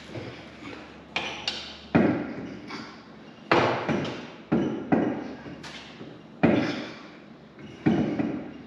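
An irregular series of sharp knocks and thuds, about ten over several seconds, each ringing out briefly in a hard-walled room.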